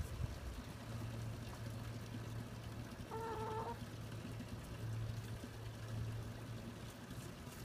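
A chicken gives one short, steady-pitched call about three seconds in, over a low steady hum.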